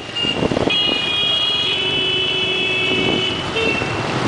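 Motor scooter riding along a wet road: steady engine and tyre noise, with a high steady tone held through most of it.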